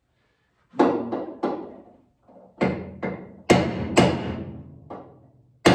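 Hammer blows on the steel decklid hinge mounting of a VW Beetle's body, bending the mounting surface upward. About nine sharp metallic strikes, each ringing briefly, come irregularly at roughly two a second, and the heaviest fall past the middle and at the very end.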